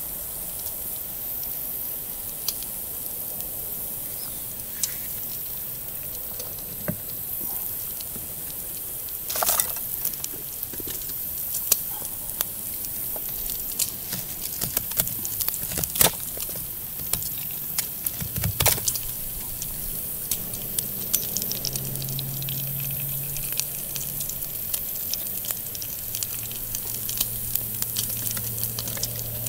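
Bacon sizzling in a small frying pan over a wood fire: a steady hiss with sharp pops and crackles scattered throughout.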